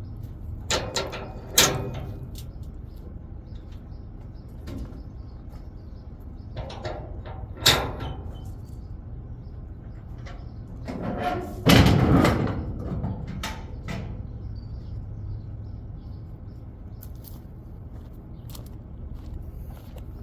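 A vehicle engine idling low and steady under a series of loud bangs and clunks, with the heaviest, a longer clatter, about twelve seconds in.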